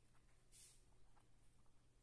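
Near silence: quiet room tone with a few faint soft clicks and one brief soft hiss about half a second in.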